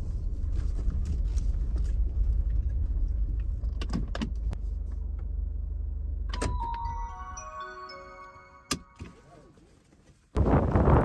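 A car's engine runs with a steady low rumble, with a couple of clicks about four seconds in. It cuts off with a click after about six seconds, and a short series of electronic tones at different pitches follows. Near the end a loud gust of wind suddenly rushes over the microphone.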